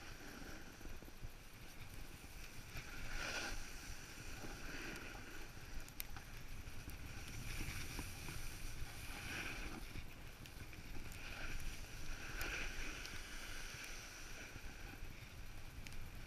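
Snowboard sliding and scraping over packed snow on a downhill run, the hiss swelling with each turn every second or two, with wind rumbling on the microphone.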